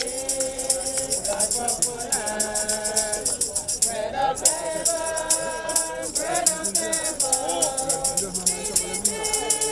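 Group of voices singing a hymn, accompanied by a shaker keeping a steady rhythm.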